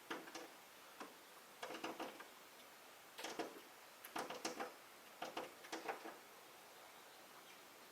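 Short clusters of rapid clicks and scratching, coming in bursts about every second for the first six seconds, from birds handling and rustling nesting material.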